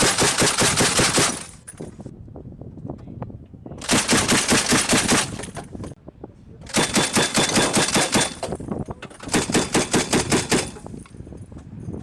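M2 Browning .50-calibre heavy machine gun firing four bursts of automatic fire, each one to two seconds of rapid, evenly spaced shots, with short pauses between them.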